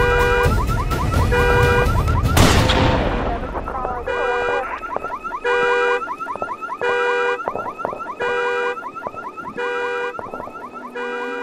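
Car alarm going off: a horn blaring in short blasts about every second and a half over a fast warbling siren tone. A single loud bang cuts through it about two and a half seconds in.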